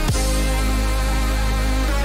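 Background music with a heavy, steady bass line and sustained pitched tones; a quick falling sweep comes right at the start.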